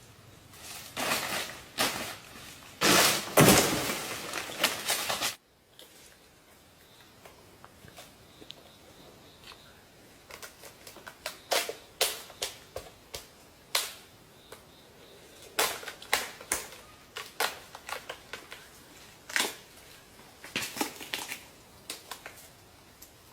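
Loud rustling and crunching for about five seconds, cut off suddenly, then a series of irregular sharp knocks and cracks, a few a second in clusters.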